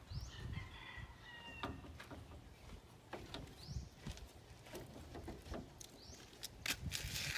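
Light clicks and knocks from hand work on a gate lock, with a bird calling three times.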